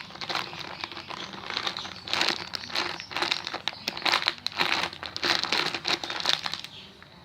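Crinkling of plastic wrapping being handled, in irregular bursts that die away near the end.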